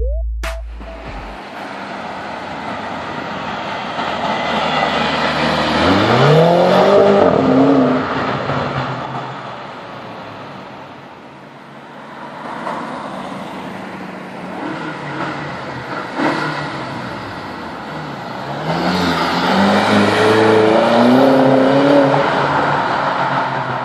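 BMW X6 M's twin-turbo V8 accelerating hard twice, about six and nineteen seconds in. Each time the revs climb and break off in quick upshifts, and these are the loudest parts. A steady road hum runs between them.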